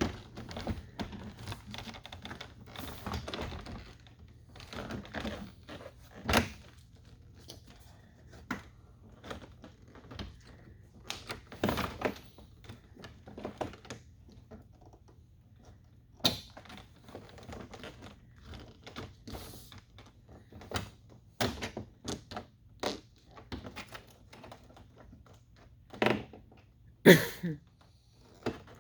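Irregular clicks, taps and knocks of trim being handled and pressed against a pickup truck door while a piece is worked to seat over a lip. The loudest knock comes near the end.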